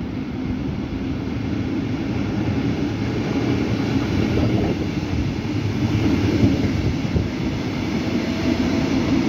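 Red DB Regio double-deck regional train passing close along the platform, a steady rumble of wheels on rail that grows louder as the cab car and coaches go by.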